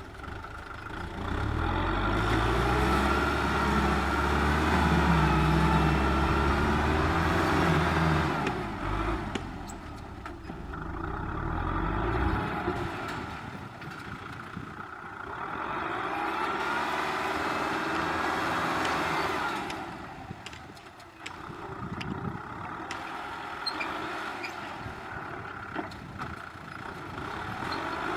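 Kubota M6040SU tractor's diesel engine working while the tractor pushes soil. Strong deep engine tones for about the first twelve seconds, then lighter running that rises and falls in level several times.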